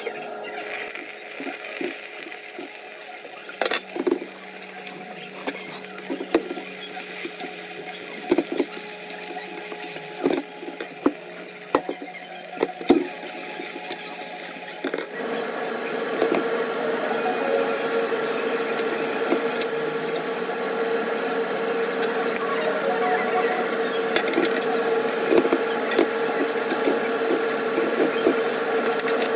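Scattered knocks and clatter, then about halfway through a steady motor hum with a constant whine comes on and keeps running.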